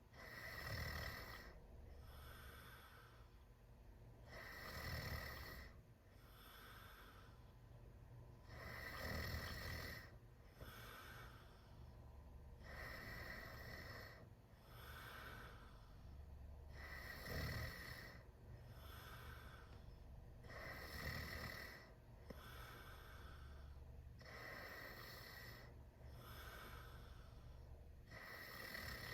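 A teenager snoring with mouth wide open, in a slow, even rhythm: a stronger snore about every four seconds, with a softer breath between each.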